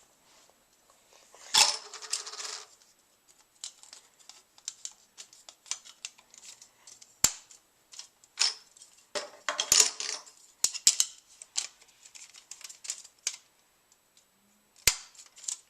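Hard plastic Connect 4 pieces clicking and clattering as they are handled, in scattered sharp clicks with a few short bursts of clatter.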